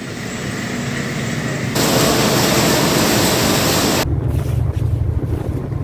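Wind and sea noise aboard a fishing trawler, cut abruptly twice. The middle stretch is a loud, even rush, and the last stretch is mostly the low rumble of the boat's engine.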